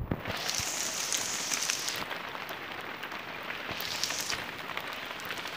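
Steady rain falling, an even hiss with scattered close drops ticking, swelling twice: near the start and again about four seconds in.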